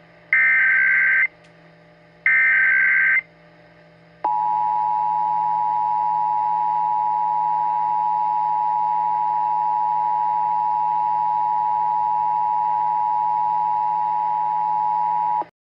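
Emergency Alert System tones. First come the last two SAME header data bursts, each a warbling data tone about a second long with a second's gap between them. Then the EAS attention signal, a steady two-tone sound just under 1 kHz, runs for about 11 seconds and cuts off suddenly. It signals that a warning message follows.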